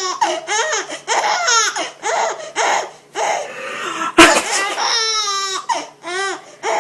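A baby girl laughing in a string of short, high-pitched bursts. About four seconds in, a man sneezes loudly, and she answers with a long, quavering squeal of laughter.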